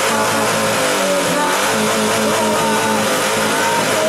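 Car with a loud modified exhaust running, mixed with a live band's music with electric guitar.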